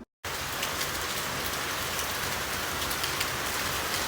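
Rain falling steadily, with scattered sharp drop ticks through it; it cuts in abruptly right at the beginning.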